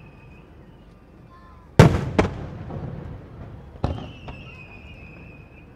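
Aerial fireworks shells bursting: two loud booms close together about two seconds in and a third a couple of seconds later, each trailing off in a rumble. A thin high whistle, falling slightly in pitch, sounds at the start and again after the last boom.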